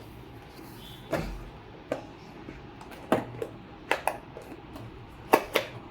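A cardboard keyboard box being opened and handled: several sharp knocks and scrapes of cardboard and packaging, scattered irregularly.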